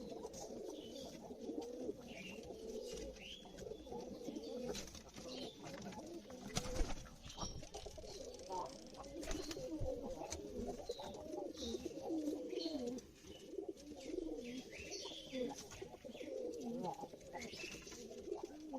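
Pigeons cooing continuously, overlapping one another, with short high chirps above the cooing and a few sharp clicks, the loudest about seven seconds in.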